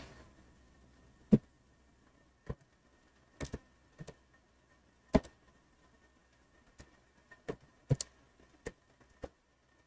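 Keys of a computer keyboard being pressed one at a time: about a dozen short, separate clicks at an uneven, unhurried pace, some in quick pairs.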